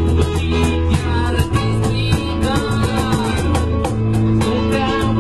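Acoustic guitar played with voices singing a song, over a steady beat of sharp percussive hits.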